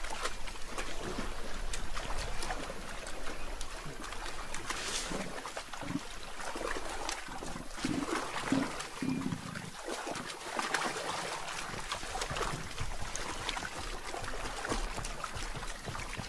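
African elephants wallowing and digging in a mud pool: wet mud squelching and water trickling and dribbling in irregular bursts, with a few short low sounds about halfway through.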